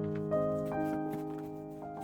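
Background music: a soft keyboard or piano melody, notes changing about every half second over sustained lower notes.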